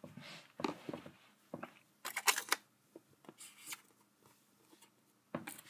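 Hands handling a thin sheet of sculpting clay, lifting it off the table: a few scattered soft rustles and small clicks.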